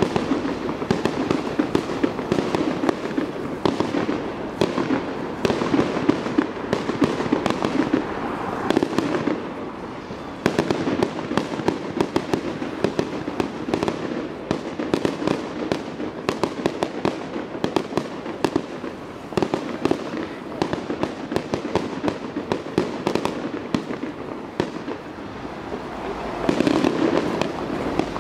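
Fireworks display: a rapid, continuous run of aerial shell bursts and crackling stars, dozens of sharp bangs and pops in quick succession. A short lull comes about ten seconds in, and the barrage swells again near the end.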